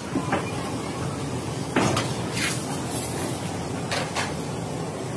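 Workshop noise: a steady low hum with a few sharp knocks, two of them about two seconds in and two more about four seconds in.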